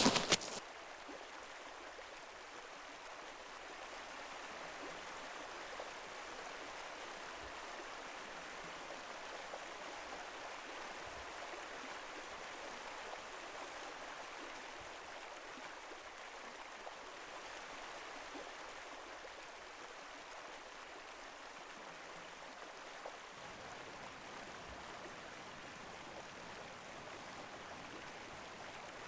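Steady rushing of flowing water, like a small forest stream, with no distinct events. Low rumble joins in about three quarters of the way through.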